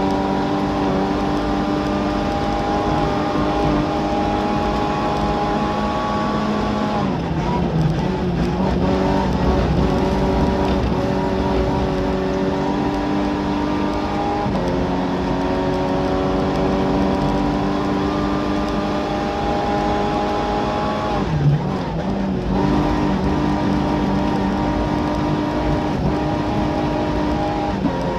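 Skoda Favorit Group A rally car's four-cylinder engine running hard at high revs, heard from inside the cabin over road noise. The engine note breaks off briefly about seven seconds in and again about twenty-one seconds in as the car slows from about 105 to 90 km/h, then picks up again.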